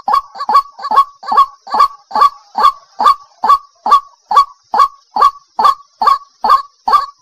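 White-breasted waterhen calling, a steady run of short repeated notes a little over two a second, each falling in pitch. It is the female's call to a male, used as a lure call.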